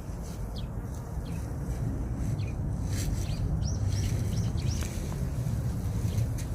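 Small birds chirping: short, high chirps scattered throughout, with a quick run of them a little past the middle, over a steady low background rumble.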